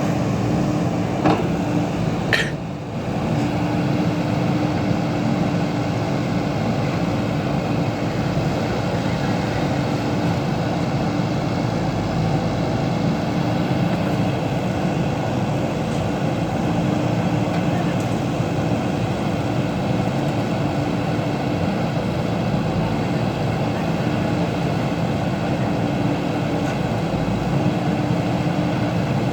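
Diesel engine of a JCB backhoe loader running steadily under work. There is a short sharp knock about a second in and another a little over two seconds in.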